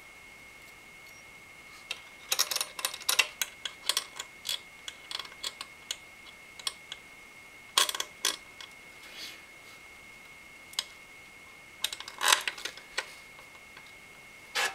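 Small metal clicks, taps and rattles from the Silverstone NT06-Pro CPU cooler's retention brackets being set by hand onto the motherboard's mounting posts, coming in scattered clusters. A faint steady high tone sits underneath.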